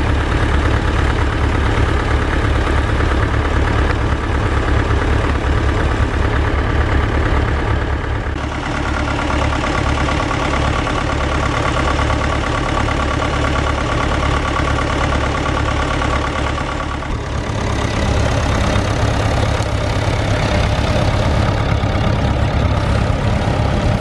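Vintage farm tractor engine running steadily while pulling a plough. The sound changes abruptly twice, about a third and two-thirds of the way through.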